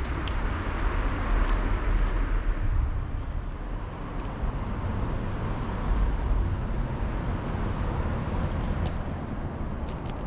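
Road traffic passing, a steady low rumble with a vehicle swelling past in the first few seconds.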